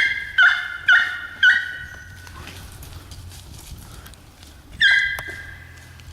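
Hunting dog barking in high, ringing yelps: four quick ones in the first second and a half, then one more near the end.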